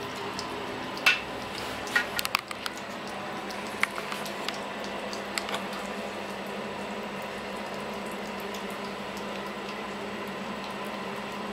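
Two cats eating wet cat food from a plastic bowl: wet chewing and squishing, with a few sharp clicks in the first half, loudest about a second in, over a steady low hum.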